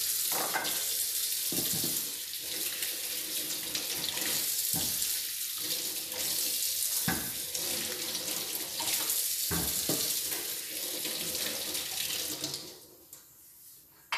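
Kitchen tap running into a stainless steel sink while chayote squash are rinsed by hand under the stream, with a few soft knocks from handling. The water is turned off near the end.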